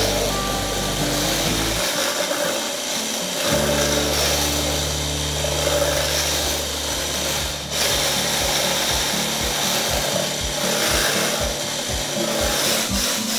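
Electric hand blender with a wire whisk attachment running, beating cream in a plastic jug with a steady whirring, rubbing noise. Background music with a bass line plays alongside.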